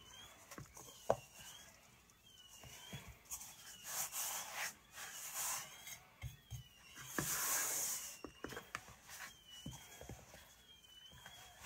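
Hands kneading shaggy flour-and-water dough in a stainless steel mixing bowl: dough and palms rubbing and scraping against the metal in uneven bursts, with light knocks of the bowl. A faint high squeak or chirp repeats about once a second behind it.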